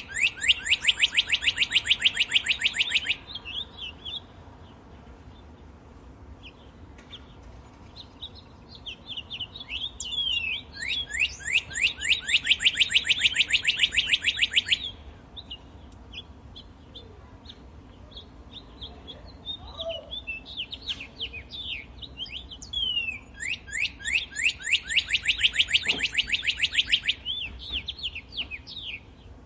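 Songbird singing a loud, fast trill of quick descending notes, each bout lasting about three to four seconds and repeated three times about every twelve seconds. Scattered short chirps fill the gaps between bouts.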